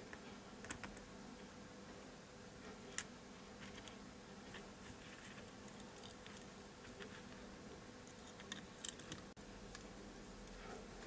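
Scattered small clicks and taps of metal tweezers and a precision screwdriver on the plastic and metal parts of a Sony DSC-W830 compact camera's lens unit, over a faint steady hum. The sharpest click comes about three seconds in, with a few more close together near the end.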